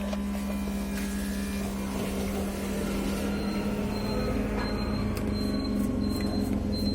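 Water with herbs heating in a pot on a stove: a steady low hum, with a rumbling noise that grows louder about three seconds in.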